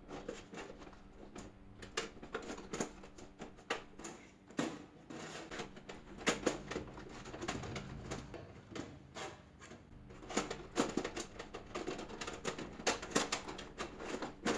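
Irregular clicks, knocks and clatter of metal and plastic as a hard disk is fitted into a desktop PC case's drive bay.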